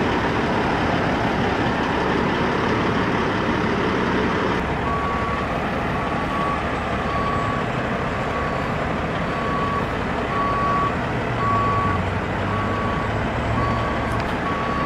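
Steady truck engine and road noise. A third of the way in, a vehicle's reversing alarm starts beeping about once a second.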